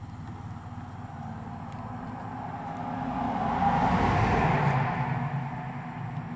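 A road vehicle passing by: its noise builds, peaks about four seconds in and fades again.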